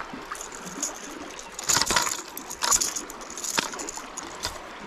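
Hooked white bass thrashing and splashing at the water's surface as it is scooped into a landing net, in a few sharp splashes around the middle, over the steady rush of swift river current.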